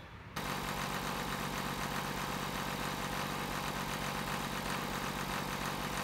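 John Deere 300B loader backhoe's engine running steadily at idle, driving its hydraulic pump under pressure. It starts abruptly a fraction of a second in and holds an even, unchanging note.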